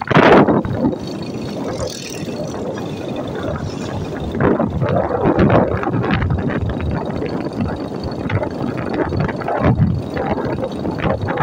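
Running noise of a moving vehicle heard from on board: engine and road noise that swells and falls irregularly, opening with a loud rush.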